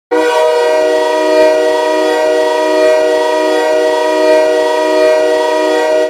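The Sudbury Wolves' hockey goal horn blasting one long, steady note made of several tones at once, like a train horn.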